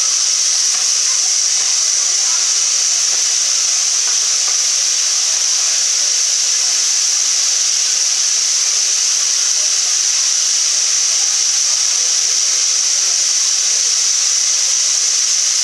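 LNER Peppercorn A1 Pacific steam locomotive 60163 Tornado blowing off steam from the top of its boiler: a loud, steady, high hiss that never breaks.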